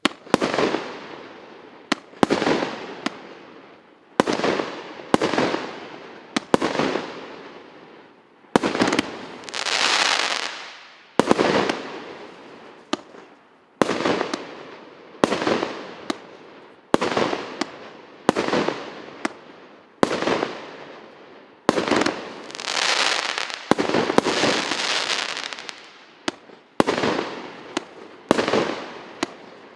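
A 36-shot firework cake firing its shots one after another, about one a second: each a sharp launch report followed by the fading burst and crackle of the shell overhead. Twice, about ten seconds in and again past twenty seconds, a longer, louder crackling burst swells and dies away.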